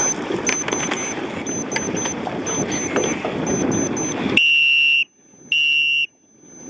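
Steady wind noise on the microphone, then two short horn blasts, each about half a second long, in the last two seconds: the race start signal.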